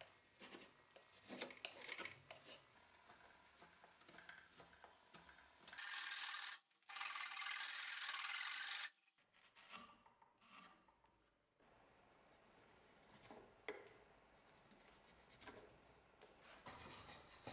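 Hand saw cutting a wooden axe handle clamped in a vise, loudest in two spells of sawing strokes from about six to nine seconds in. Quieter scraping strokes on the wood come before and after.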